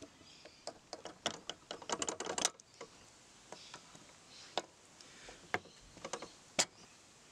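Locking pliers clicking and scraping on a lawn mower's crankshaft oil seal as the old seal is worked out: a quick cluster of sharp metal clicks, then a few single clicks about a second apart.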